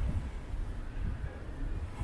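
Outdoor city ambience: a low, uneven rumble with no distinct event.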